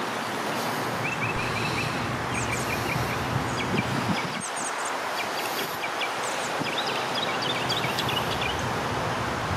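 Birds chirping in short, quick calls again and again over a steady hiss of light rain.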